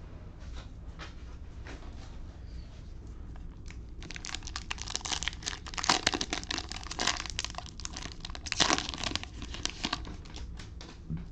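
Cellophane wrapper of a basketball card cello pack crinkling and tearing as it is opened. A few faint ticks come first, then a dense run of crinkling from about four seconds in until about ten seconds.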